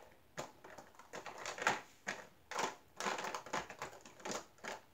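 Small clear plastic diamond painting drill containers clicking and clattering against each other and the hard plastic storage case as they are set into its slots: a string of short, irregular clicks.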